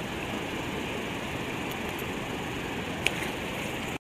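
Steady rush of a flooded river's fast current, with a single click about three seconds in.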